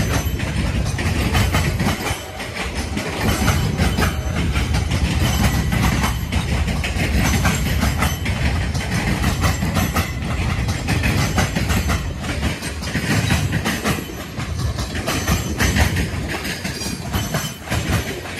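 Mixed freight cars of a CSX manifest train rolling past: a steady rumble of steel wheels on rail, with rapid clicking as the wheels cross rail joints.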